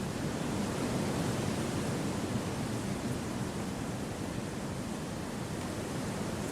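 Wind blowing steadily through forest trees: an even, unbroken rush with no separate gusts or calls.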